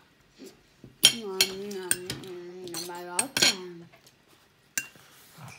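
A metal fork clinks several times against a plate with rice on it, from about a second in. At the same time a child hums one drawn-out, wavering note that stops just before four seconds. One more clink comes near the end.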